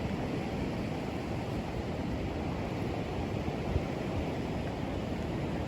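Sea surf: small waves washing steadily onto the shore in calm weather, an even rushing noise without lulls.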